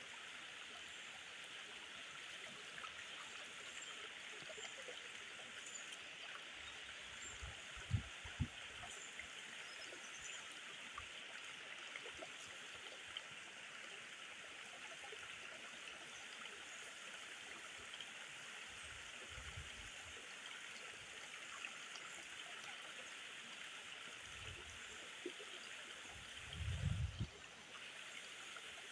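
Shallow stream running over rocks: a steady rush and ripple of water. A few dull low thumps come through it, twice briefly and once in a longer cluster near the end.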